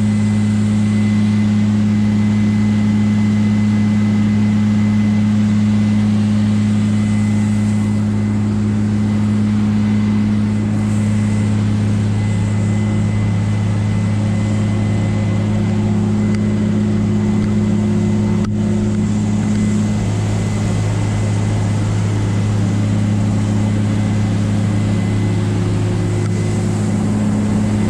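Combine harvester's diesel engine running at a steady speed, a constant low drone.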